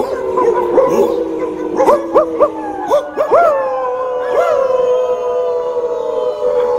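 A group of people howling in imitation of wolves. Several voices overlap, with short rising yips over the first few seconds, then long held howls that slide slowly downward together.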